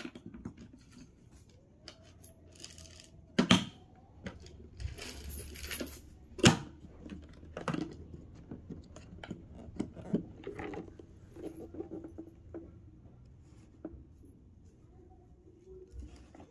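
Scattered small clicks, knocks and rustling, with a sharp knock about three and a half seconds in and a louder one about six and a half seconds in.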